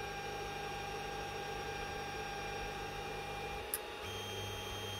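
Creality Ender 5 Plus 3D printer running idle with a steady hum and whine. A faint click comes about three and a half seconds in, and the whine changes pitch after it.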